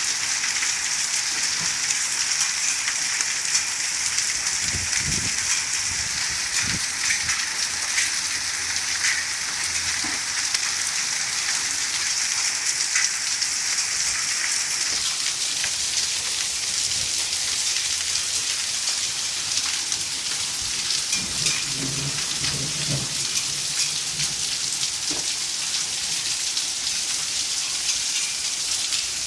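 Thunderstorm downpour: dense, steady rain and hail pelting surfaces in a continuous patter of impacts, with a few brief low rumbles, the longest about two-thirds of the way through.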